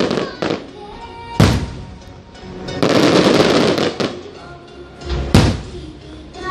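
Fireworks going off: two loud bangs about four seconds apart, with a spell of dense crackling between them.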